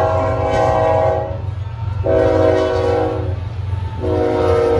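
Diesel freight locomotive's air horn sounding a chord in three blasts: one ending about a second in, one of about a second and a half, and a third starting near the end, over the steady low running of the passing train's locomotives.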